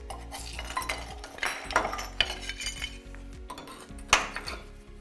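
Irregular sharp clinks and knocks of fired-clay Porotherm brick being broken out of a freshly cut cable groove by hand. The loudest knock comes about four seconds in.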